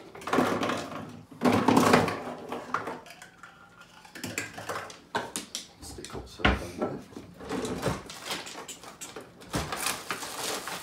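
Kitchen handling noises: knocks and clatters of cups and packaging on a worktop, loudest in two short stretches in the first two seconds, with a cutlery drawer pulled open near the end.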